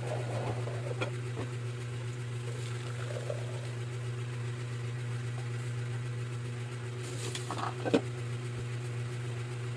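Steady low hum from a motor-driven appliance, with a sharp knock about eight seconds in.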